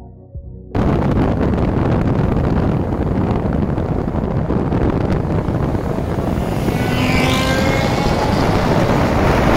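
A brief tail of electronic outro music, then a steady loud rush of road and wind noise from a car at speed. About six and a half seconds in, the 5.0-litre V10 of a straight-piped 2008 BMW M6 climbs steeply in pitch as it accelerates hard.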